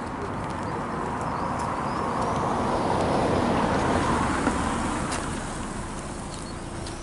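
A car driving past. Its engine and tyre noise swells to a peak about halfway through, then fades away.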